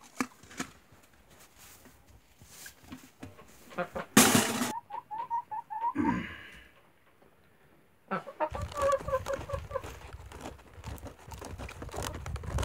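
A hen in a straw nest box clucking: a quick run of short clucks, then a lower falling call, with a second run of clucks over rustling a few seconds later. A loud brief rustle comes just before the first clucks.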